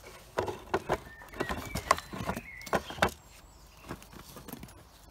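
Handling noise from a Husqvarna 236 chainsaw being taken apart: an irregular run of sharp clicks, knocks and rattles of its parts, thickest over the first three seconds, then a few scattered taps.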